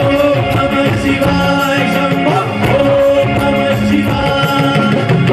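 Live stage music: a man sings held, wavering notes into a microphone over a band with drums keeping a steady beat.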